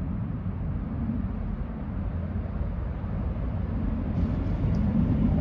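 Class 158 diesel multiple unit approaching the platform, a low rumble growing steadily louder.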